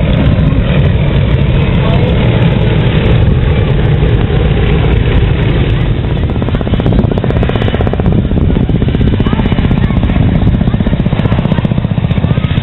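Loud aircraft engine noise from a low-flying aircraft, steady and low-pitched, with a fast even chopping beat from about four seconds in.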